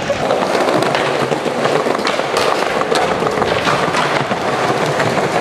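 Skateboard wheels rolling over paving slabs: a continuous rumble with frequent clacks as the wheels cross the joints.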